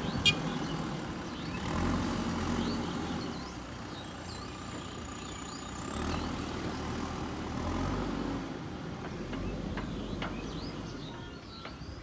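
JCB backhoe loader's diesel engine running, its level rising and falling as the machine works soil. A sharp knock sounds just after the start, and birds chirp throughout.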